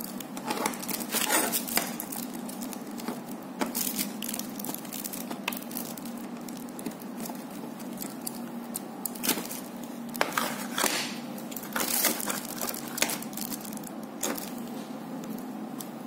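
Clear plastic packaging crinkling and crackling as it is handled, with scattered sharp clicks, over a steady low hum.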